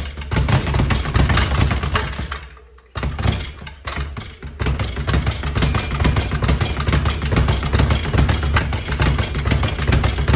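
Speed bag being punched in a fast, even rattle of rapid strikes against its platform. The rattle breaks off briefly about two and a half seconds in, then picks up again and runs on.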